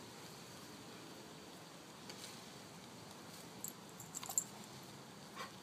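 A dog on a leash leaping and snapping at low bare tree branches: mostly faint, with a cluster of small sharp clicks and snaps about four seconds in.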